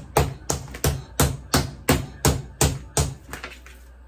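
Wooden meat mallet pounding a slice of raw meat thin on a plastic cutting board: steady blows about three a second, which weaken and stop about three and a half seconds in.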